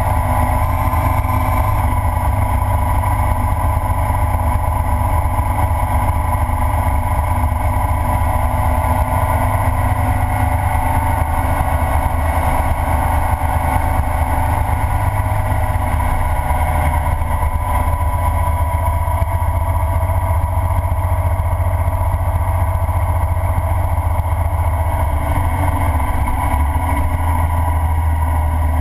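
Ural sidecar motorcycle's flat-twin engine running steadily at cruising speed on the road.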